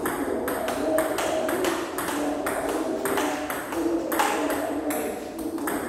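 Table tennis rally: a celluloid ball clicking off the table and the paddles in an even rhythm, about three to four clicks a second. This is pimpled-rubber (pips) racket practice.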